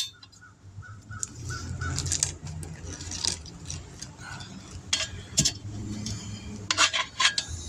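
Metal tire tools clinking and knocking against a wheel rim during a tire change, over a steady low hum.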